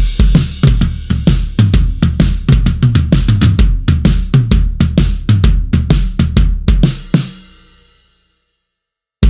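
Sampled acoustic drum kit from the Blasting Room Signature Series Drums Kontakt library, playing a fast groove of bass drum, snare and cymbal hits for about seven seconds. It ends on a cymbal hit that rings out and fades, and a new pattern starts just at the end.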